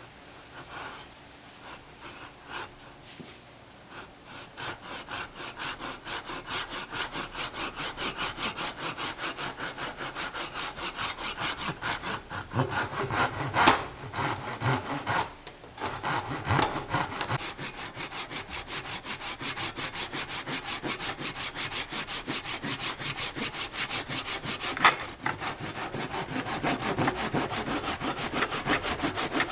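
Hand saw cutting through cypress wood with quick, even back-and-forth strokes. It starts faint and gets louder over the first few seconds, with a brief break about halfway through.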